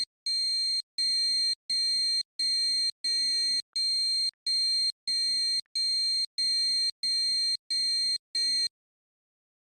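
Electronic emergency alert tone: a high-pitched beep repeating about once every 0.7 seconds, each beep with a wavering lower undertone, stopping about nine seconds in.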